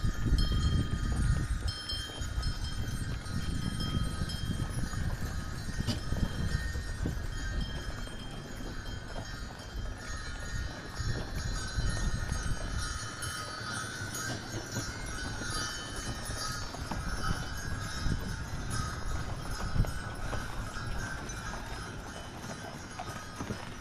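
Sleigh bells on horse harness jingling steadily as horse-drawn cutters travel over snow, over a low rumble that is strongest in the first half and eases about halfway through.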